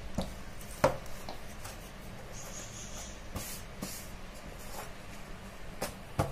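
Hands spreading and flattening a thin round of maida dough on a plastic rolling board: soft rubbing and brushing, with a few short sharp taps, the loudest about a second in.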